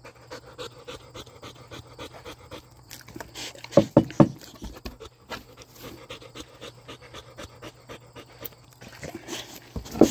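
Bulldog panting quickly and steadily, stressed while porcupine quills are being pulled from its muzzle, with three louder short sounds about four seconds in and more near the end.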